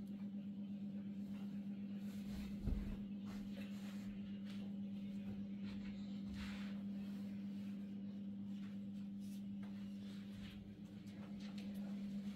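Blankets rustling as they are lifted, shaken and laid down, over a steady low hum. One thump comes about two and a half seconds in.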